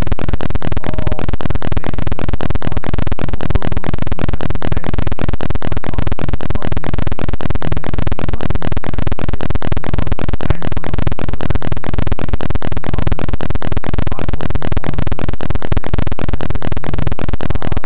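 Loud, unbroken crackling noise made of rapid, evenly spaced clicks across the whole range: a distorted audio signal.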